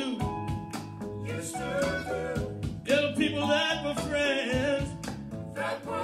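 A song with a singing voice over instruments and bass, played back through a Dockin D Fine Bluetooth speaker.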